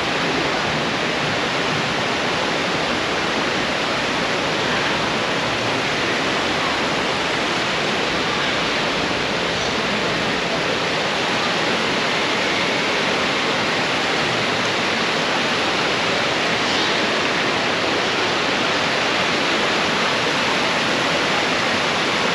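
A waterfall, a steady, unbroken rush of falling water.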